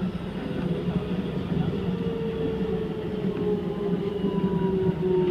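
Keikyu 2100-series electric train running, heard from the cab: a steady rumble of wheels on rail under a motor whine that slowly falls in pitch, the sign of the train slowing.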